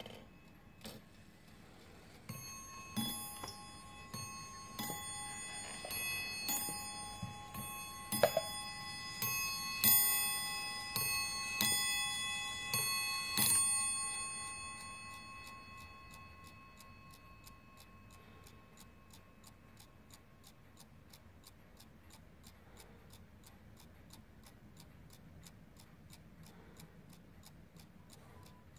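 Warmink Dutch 8-day bracket clock striking on its double brass bells: a run of hammer blows about one a second, starting a couple of seconds in and stopping near the middle, with the bells ringing on and dying away. Steady ticking of the movement is heard throughout.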